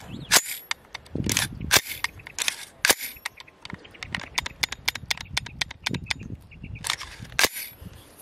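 X2Dev Group Jackal AR-15 charging handle being worked by hand: a run of sharp metallic clicks and clacks as the handle is pulled back and the bolt snaps forward, several of them loud, about a dozen over the span.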